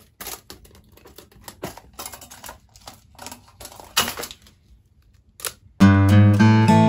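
Scattered soft clicks and rustles of small objects being handled. About six seconds in, strummed acoustic guitar music starts, louder than anything before it.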